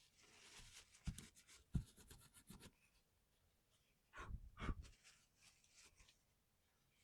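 Faint scraping and rubbing with scattered sharp clicks and a couple of soft knocks, from hands working on mechanical keyboard parts. Two louder clicks with dull thumps come about two-thirds of the way through.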